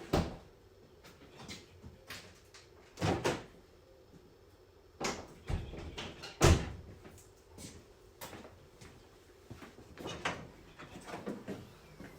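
Irregular knocks and clunks, about half a dozen spread out unevenly, the loudest about six and a half seconds in.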